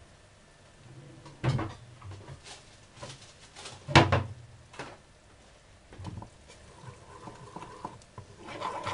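A handful of scattered knocks and clatters from kitchen utensils being handled, the two loudest about one and a half and four seconds in.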